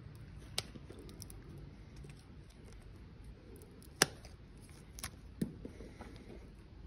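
Metal snips cutting away an overgrown horse chestnut, the horny growth on the inner leg: a few scattered sharp snips, the loudest about four seconds in.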